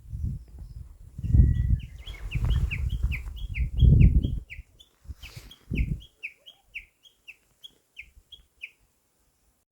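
A bird calling in a quick, steady series of short falling chirps, three or four a second, which stop near the end. Low rumbling gusts come and go underneath in the first half.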